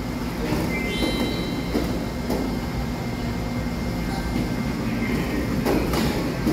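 Steady low rumbling din of an indoor play area, with a brief high-pitched tone about a second in.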